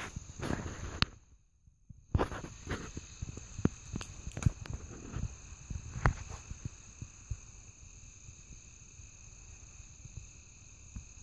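Steady high-pitched insect chirring, likely crickets, with a sharp crack right at the start and scattered clicks and knocks over the first six seconds.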